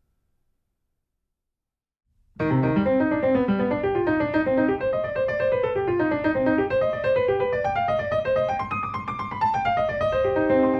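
Silence, then background piano music starts abruptly about two seconds in, with quick runs of notes rising and falling.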